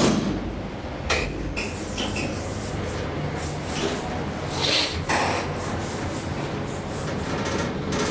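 KONE hydraulic elevator: a door thuds shut right at the start, then a steady low hum from the lift's machinery with a few scattered clicks and knocks.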